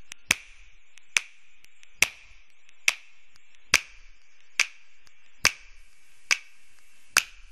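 Sharp clicks at an even pace, about nine of them, a little under one a second, like a slow ticking.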